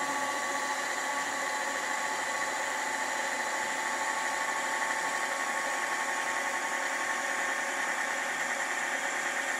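Small tapping machine's three-phase electric motor running steadily on a variable-frequency inverter while the drive frequency is turned down from about 45 to 30 hertz, bringing the motor toward half speed.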